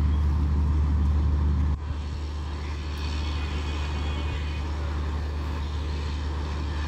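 Diesel locomotive's engine running with a deep steady hum as the train draws slowly into a station. The engine sound drops suddenly a little under two seconds in, then carries on more quietly, with a faint high squeal for a second or so about three seconds in.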